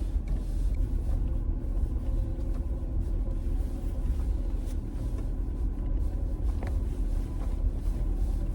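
Vehicle driving slowly along a dirt track, heard from inside the cabin: a steady low rumble of engine and tyres on gravel, with a few faint knocks.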